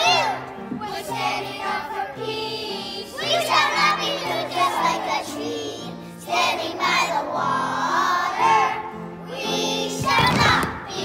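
Children's choir singing in phrases over steady held low accompanying notes, with a louder burst of voices near the end.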